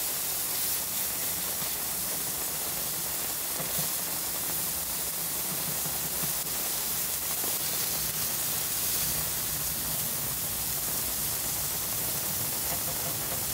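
Burger patties and thinly sliced onions frying on a hot plancha, giving a steady sizzle.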